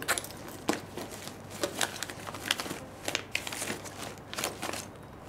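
Someone rummaging through a bag: irregular rustling, crinkling and small knocks of things being shifted about as it is searched.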